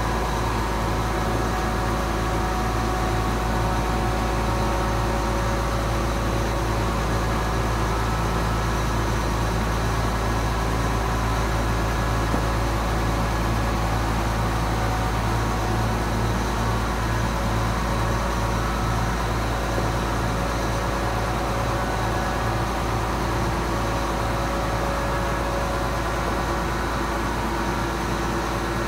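John Deere 7720 combine's six-cylinder diesel engine idling steadily.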